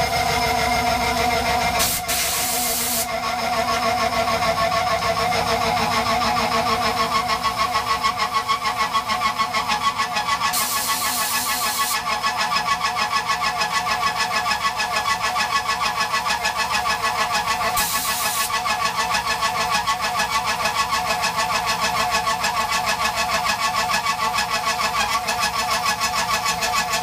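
A 4-inch side milling cutter on a Tormach PCNC 1100 mill cutting slots into an aluminum heat sink, a steady, fast-pulsing cutting sound. Short bursts of hiss come about two, eleven and eighteen seconds in.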